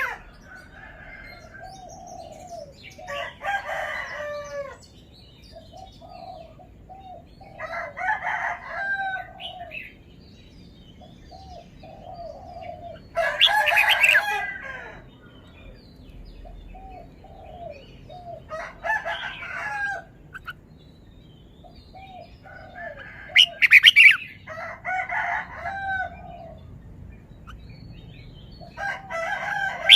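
Red-whiskered bulbul singing: loud, warbling song phrases of about a second each, repeated every four to five seconds, with soft short call notes between them.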